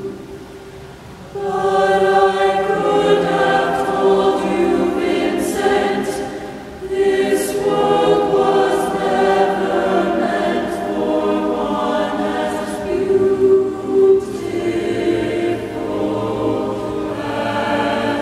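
Mixed a cappella choir singing in a large church. Soft at first, the full choir comes in about a second and a half in, with a brief lull between phrases about seven seconds in.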